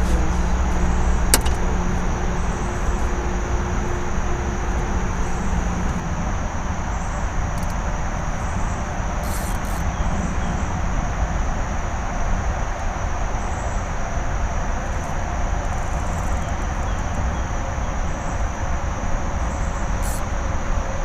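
A steady low rumble, with a continuous high-pitched drone typical of night insects above it. A low hum is there at first and stops about six seconds in.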